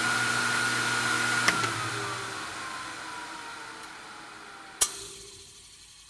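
Harvey table saw motor running with a steady hum and whine. It is switched off with a click about a second and a half in, then spins down, its whine falling in pitch as it fades. A second sharp click comes near the end.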